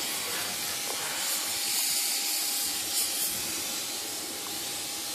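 Steady hiss of an oxyacetylene torch burning through a rosebud tip, holding an even level, with a faint knock or two from the blade and clamp over the quench tank.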